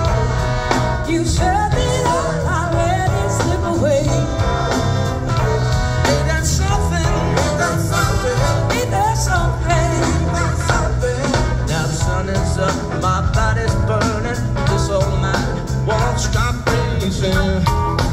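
Live blues-rock band playing loud through an outdoor amphitheater's sound system, heard from far back in the crowd, with a singing voice over guitars, bass and drums.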